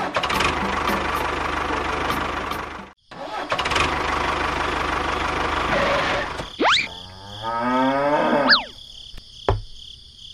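Small engine running steadily, cut off sharply for a moment about three seconds in, then running again. After it stops, a quickly rising whistle-like glide is followed by a falling one, and there is a single click near the end.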